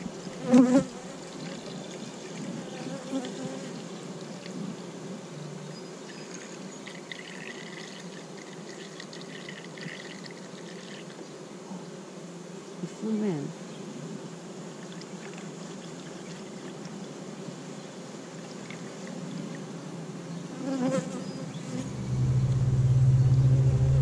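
Honeybees buzzing steadily around an open hive while sugar syrup is poured from a jug into the hive's feeder. A low rumble comes in near the end.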